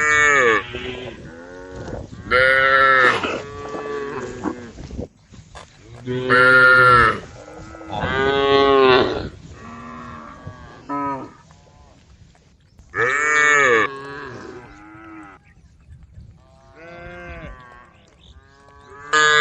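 Cattle mooing: several loud calls of about a second each, bending up and down in pitch, with fainter calls from other animals in between.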